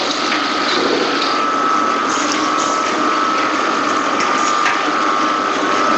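Machinery running steadily, a constant mechanical noise with a held whine and a few scattered clicks.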